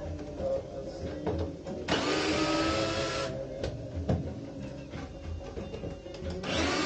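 A small power tool runs in two short bursts about four seconds apart, each with a slightly rising motor whine, over steady background music, with a few knocks in between.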